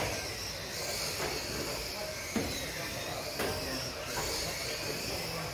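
High-pitched whine of several small electric model racing cars' motors, wavering up and down in pitch as they speed around the track, with a couple of short knocks.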